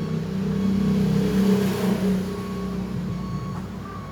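A steady engine hum that swells to its loudest about a second and a half in and then fades, like a motor vehicle going past. A faint short beep sounds now and then.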